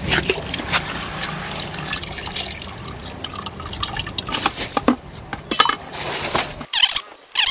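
Water sloshing and dripping among scattered knocks and clatters, from a bucket of soaked, mushy cassava roots being handled, over a steady low rumble that stops near the end.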